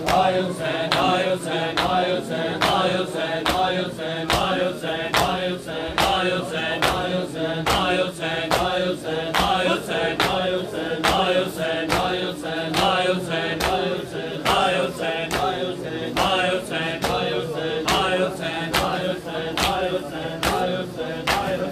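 A crowd of men chanting a noha (Shia lament) together over a steady beat of hands slapping bare chests in matam, about two slaps a second.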